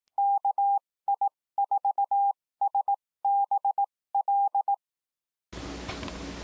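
Morse code sent as a steady beep tone, spelling the amateur radio call sign KI4SBL (-.- .. ....- ... -... .-..). About five and a half seconds in, the beeps give way to a steady faint hiss with a low hum.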